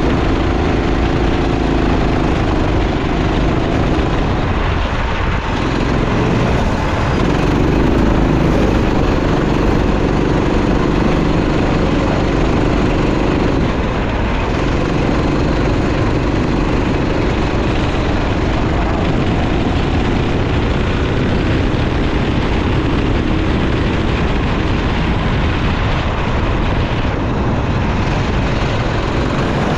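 Go-kart engine running hard, its pitch rising and falling as the throttle is opened and eased for corners, with brief lift-offs about five seconds in and again near fourteen seconds. Steady wind and track noise runs underneath.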